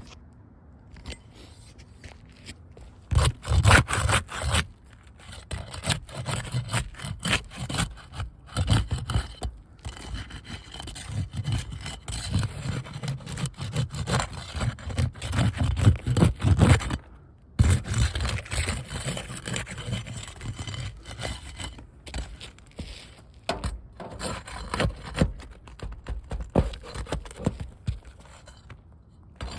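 Irregular scraping and rubbing in bouts, as a part is worked loose and removed during repair work; it starts about three seconds in, pauses briefly twice, and grows quieter in the second half.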